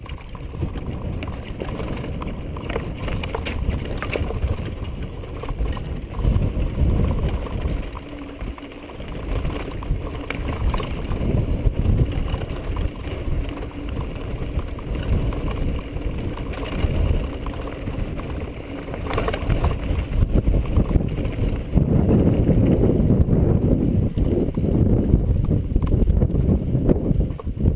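Mountain bike riding over a rough dirt-and-rock trail: wind buffeting the microphone, tyres crunching on the ground and the bike rattling over bumps, louder for the last few seconds.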